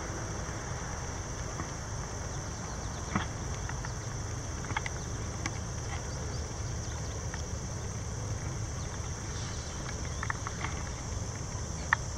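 Low, steady rumble of a CSX diesel freight train approaching in the distance, with a few scattered crunching clicks of footsteps on trackside ballast gravel.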